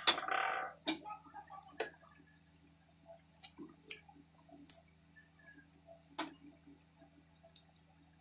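Someone eating by hand from ceramic plates: a short louder smack at the start, then scattered sharp clicks and smacks of mouth and fingers on plates, a second or more apart, over a steady low hum.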